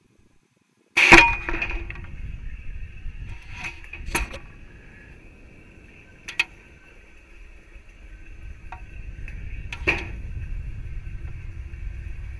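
A sharp bang from the rocket's airframe, picked up by its onboard camera as the recovery parachute deploys near apogee. It is followed by rattling, a faint steady whine, a few sharp clicks and a low rumble that builds again near the end.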